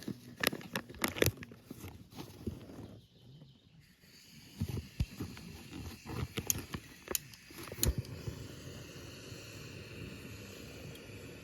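Irregular rustling with sharp clicks and knocks, and a steady hiss that comes in underneath about four seconds in.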